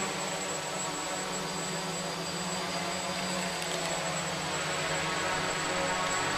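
Small electric motors and propellers of a radio-controlled FPV model aircraft in flight, a steady whine over hiss whose pitch wavers slightly as the throttle changes.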